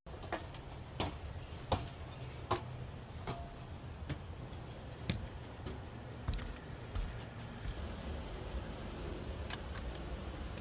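Scattered light clicks and knocks from work being handled, coming irregularly over a steady low rumble.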